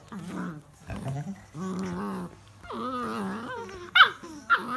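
Puppies play-wrestling, giving wavering whines and low play-growls, with two sharp, high yelps near the end.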